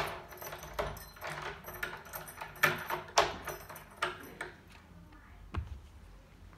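A bunch of keys jangling and clinking against a newly fitted euro profile cylinder lock and its metal door plate while the key is worked, giving a string of sharp metallic clicks, then a single duller knock near the end.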